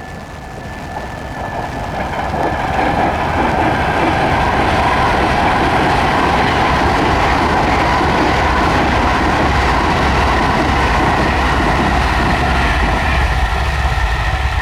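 Train approaching the trackside and passing close by: it grows louder over the first few seconds, then its wheels rumble and rattle steadily over the rails.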